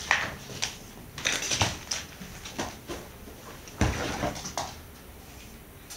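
A cat playing: scattered scuffling and clicking noises, with one heavy thump a little before four seconds in, then it goes quieter.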